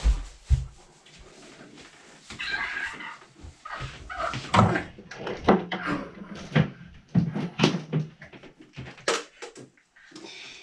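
Household handling noise: two thumps at the start, then rustling of bedding and bags, mixed with a run of short cries.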